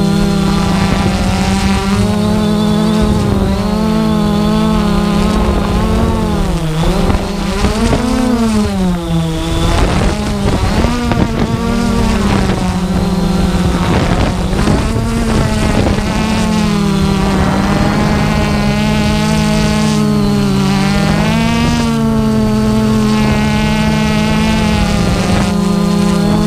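Quadcopter drone's propellers and motors humming while it hovers and manoeuvres, several close rotor tones wavering up and down together as it adjusts. There is a faint high whine above them.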